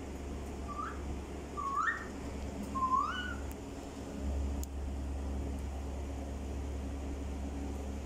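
Alexandrine parakeet giving three short, clear whistles in the first three seconds, each rising in pitch, over a steady low hum.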